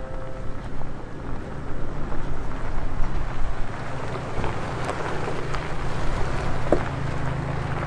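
An off-road vehicle's engine running steadily on a dirt trail, under rough tyre and wind noise with a few scattered knocks.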